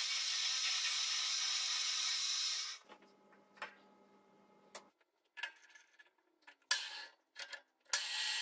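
Metal lathe running and cutting a steel bolt with a steady hiss, stopping abruptly a little under three seconds in. Then a few scattered clicks and knocks as the bolt is handled at the stopped chuck, and the lathe starts running again near the end.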